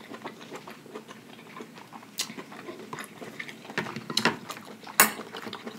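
Close-miked chewing and lip smacking: irregular wet clicks and smacks, with sharper ones about two and five seconds in.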